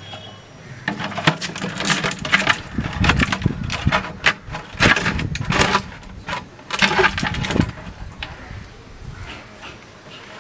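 Thin plastic crackling and creaking as a cut plastic-bottle funnel is pressed and worked into the mouth of a plastic water can, in a dense run of crackles that stops about eight seconds in.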